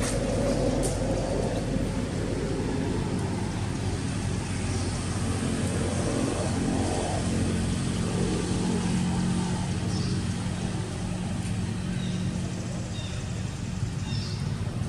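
A steady low engine hum, like a motor vehicle running nearby, with a few faint high chirps near the end.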